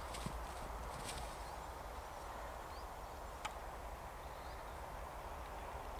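Faint outdoor ambience: a steady low wind rumble with a few faint, short high chirps and a single sharp click about three and a half seconds in.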